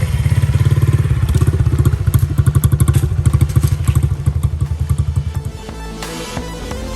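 Honda 50cc dirt bike's small four-stroke single-cylinder engine running with a rapid, uneven low pulsing, then cutting off about five and a half seconds in; background music follows.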